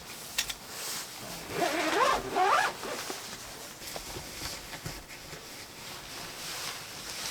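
A zipper pulled in two quick runs about two seconds in, a short rasp that wavers in pitch.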